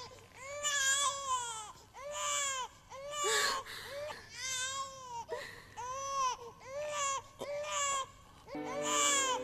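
Newborn baby crying: a string of about ten short wails, roughly one a second, each rising and then falling in pitch.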